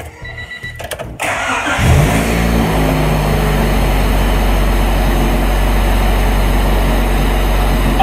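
A 1992 Honda Civic's four-cylinder engine is started from inside the cabin. The starter cranks about a second in, and the engine catches within a second with a brief flare of revs. It then settles into a steady idle.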